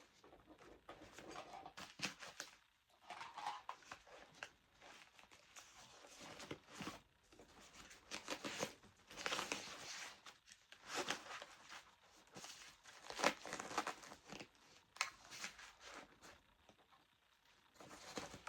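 Irregular rustling, scraping and clicking of camera gear and a fabric camera bag being handled and rummaged through.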